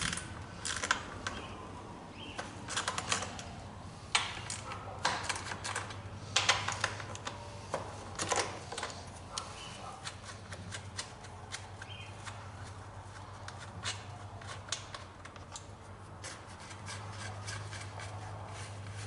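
Irregular metallic clicks and taps of a small wrench working loose the 10 mm nuts that hold the recoil starter onto a Honda HRX217 lawn mower's engine shroud, over a steady low hum.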